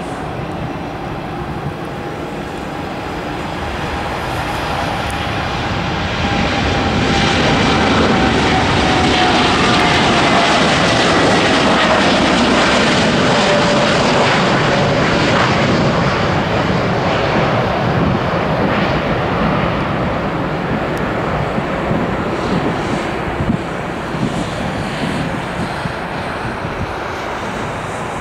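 Boeing 787-8's two GE GEnx-1B turbofans at takeoff thrust during the takeoff roll and climb-out. A loud jet roar swells as the airliner passes, with a whine that falls in pitch, then eases slowly as it climbs away.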